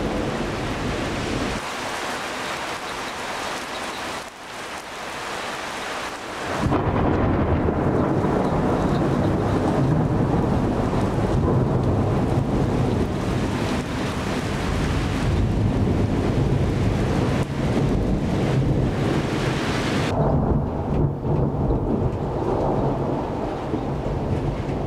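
Thunderstorm at night: rain hissing steadily, then a long, low roll of thunder that comes in suddenly about seven seconds in and keeps rumbling through the rest.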